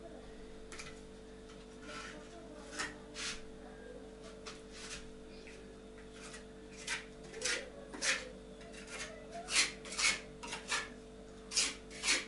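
A mason's trowel scraping and knocking on brick and mortar in short strokes, laying bricks on a stove. The strokes are sparse at first and come quicker and louder in the second half, over a faint steady hum.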